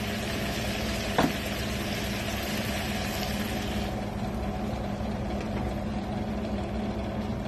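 Hot water poured into a hot pan of chicken masala, hissing for a few seconds and then stopping, with a single knock about a second in. A steady low hum runs underneath.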